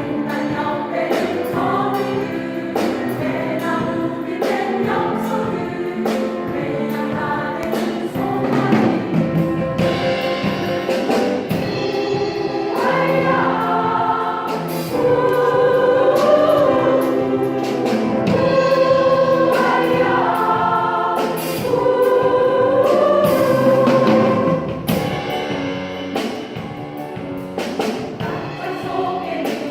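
Choir singing with instrumental accompaniment. It grows louder in the middle, with long held notes, then eases back near the end.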